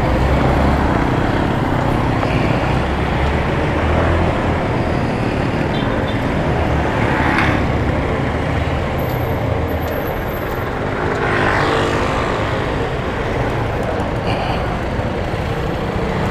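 Motorcycle riding through busy city traffic: the bike's engine and the rush of road and wind noise, with surrounding cars, buses and trucks.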